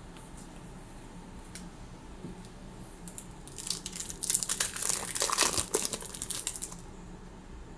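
Foil wrapper of a Pokémon card booster pack crinkling and tearing as it is opened, a dense crackle lasting about three seconds from about three and a half seconds in.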